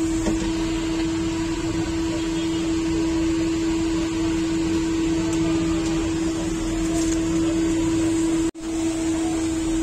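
Steady machine hum: a constant low tone over an even hiss, dropping out for an instant about eight and a half seconds in.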